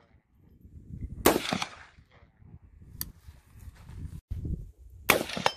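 Semi-automatic AR-style rifle with a 7.62x39 upper firing two single shots about four seconds apart, each a sharp loud crack with a short echo. A fainter crack comes between them.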